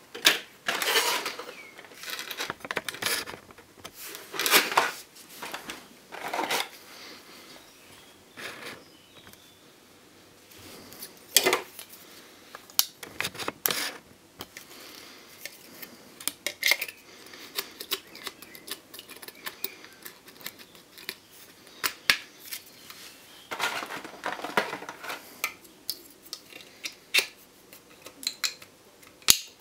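Hard plastic parts of a model airliner and a clear plastic packaging tray being handled: irregular clicks and knocks with bouts of plastic crinkling, as the fuselage is lifted out and the wings are fitted.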